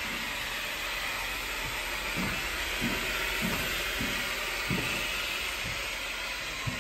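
Water running from a garden hose into plastic buckets: a steady hiss.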